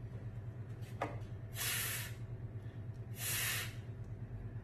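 A woman voicing the phonics sound "f" twice, each a long breathy hiss about a second and a half apart, over a steady low electrical hum.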